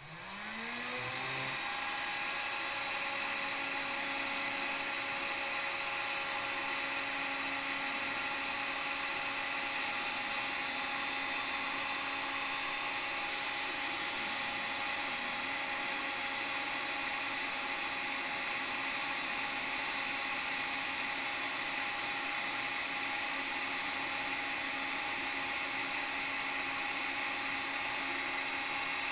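Electric heat gun with a reflector nozzle switched on, its fan motor spinning up over the first second or two, then running steadily with a high whine and rushing air while it heats a solder-seal splice to shrink the tube and melt the low-temperature solder.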